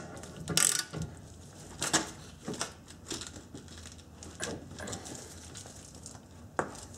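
Ratchet wrench clicking in short, irregular spurts as it snugs up a brake caliper bolt.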